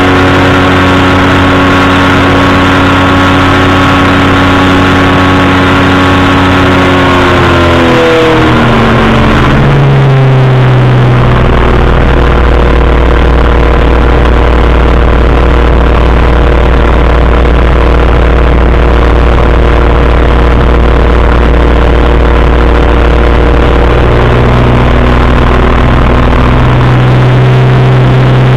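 Powered parachute's engine and propeller running loud in flight. The engine note drops about a third of the way in as the throttle is eased back, holds steady at the lower pitch, then rises again near the end as power is added.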